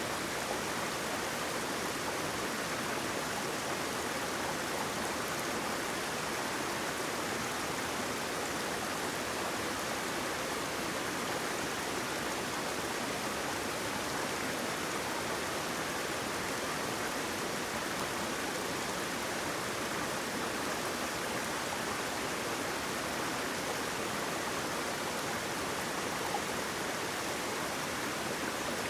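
Waterfall: water falling and rushing in a steady, unbroken wash with no change in level.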